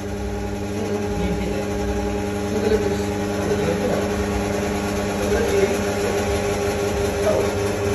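Steady machine hum of several fixed tones, like an electric motor running, with faint voices underneath.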